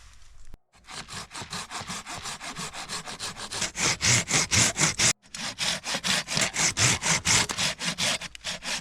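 Hand saw cutting through wood in fast, even back-and-forth strokes, about four to five a second, growing louder from about three seconds in. The rasping breaks off for an instant twice.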